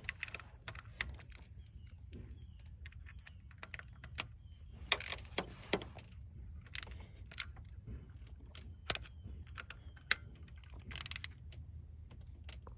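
Irregular small metallic clicks and clinks of hand tools on the coil-pack bolts as they are put back in and snugged down by hand.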